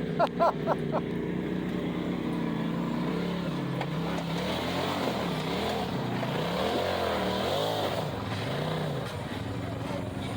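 Side-by-side UTV engine running on an off-road trail, its pitch rising and falling repeatedly as the throttle is worked, from about four seconds in until near the end.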